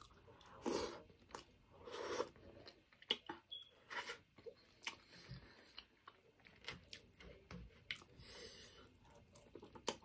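Close-miked chewing and mouth sounds of a person eating rice and sausage with the fingers: soft wet smacking and clicks, with a few louder bursts.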